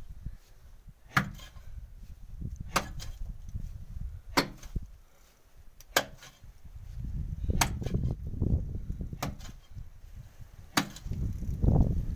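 A pickaxe striking the hard, stony floor of a hand-dug well, seven sharp blows in an even rhythm about every second and a half, over a low rumble.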